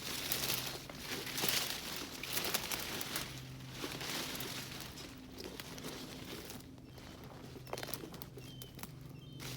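Footsteps rustling and crunching through forest undergrowth, in uneven bursts.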